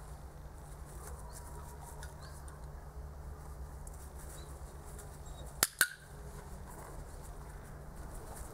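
A dog-training clicker pressed and released once about five and a half seconds in: a sharp double click, the marker for the puppy's right move before a treat.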